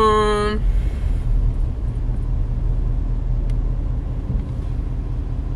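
Car running, heard from inside the cabin as a steady low rumble.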